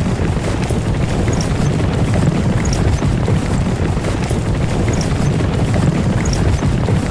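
Horse-drawn carriage rolling along: a steady low rumble of wheels and hooves, with a faint high ping recurring about every second and a half.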